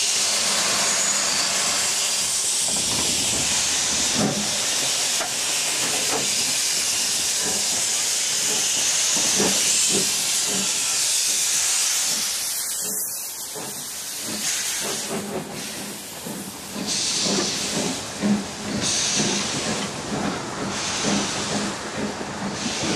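Steam locomotive, an S&DJR 7F 2-8-0, hissing loudly as steam escapes for about twelve seconds. The hiss then eases and slow exhaust beats begin, about one every second and a half.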